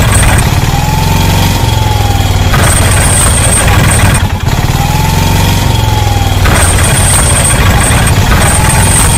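Looped engine sound effect: a vehicle engine running steadily, the same few seconds repeating, with a short dip about four seconds in.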